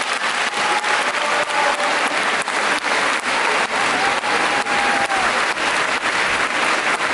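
Concert hall audience applauding at the end of a performance, the clapping falling into a steady rhythm of about three claps a second, with a drawn-out call from the audience rising over it twice.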